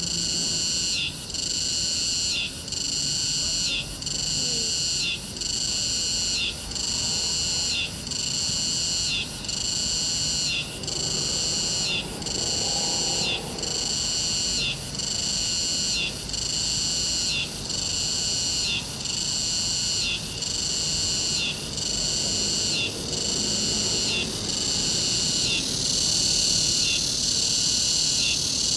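Insects calling in a high, rhythmic chorus, one chirring phrase about every second with short breaks between, running together into a continuous call near the end.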